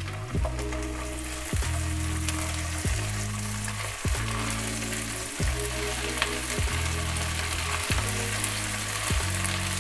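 Sliced onions and ginger-garlic paste sizzling steadily in hot oil in a wok as they are stirred with a silicone spatula, over soft background music with notes changing about once a second.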